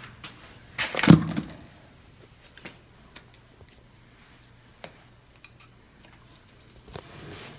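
A metal pick clicking and scraping as it pries at the red plastic port plug in a FASS fuel pump housing. There is one loud knock about a second in, then a few small scattered clicks.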